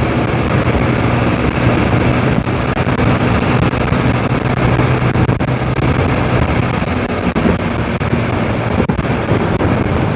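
TVS Apache motorcycle engine running steadily while riding, under heavy wind and road noise on the helmet or action-camera microphone; the engine note eases about seven seconds in.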